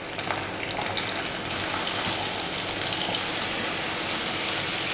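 Marinated fish steaks shallow-frying in coconut oil in a nonstick pan: a steady sizzle with small crackling pops. A spatula turns the pieces over once the first side has cooked.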